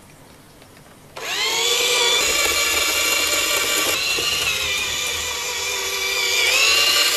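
Electric motor and gearing of a 1/32-scale radio-controlled bus whining as it pulls away about a second in, rising quickly in pitch and then running at a steady high whine, with a short dip and rise in pitch near the end.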